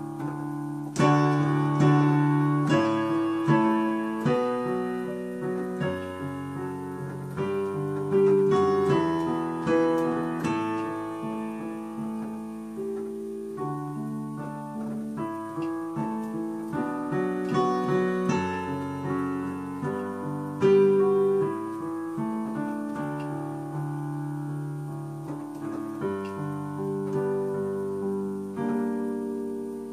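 Yamaha digital piano played with both hands in a piano voice: a hymn melody over chords, each note struck and left to ring and fade.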